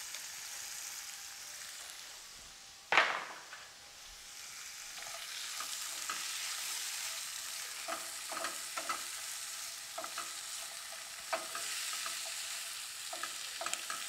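Sliced onions and carrot sticks sizzling in oil and margarine in a frying pan. A single sharp knock comes about three seconds in, then repeated short scrapes and clicks of a spatula stirring against the pan.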